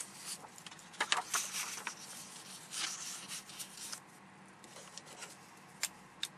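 Sheets of paper being handled and a fresh page laid out: rustling with light taps for about four seconds, then quieter, with a few soft clicks near the end.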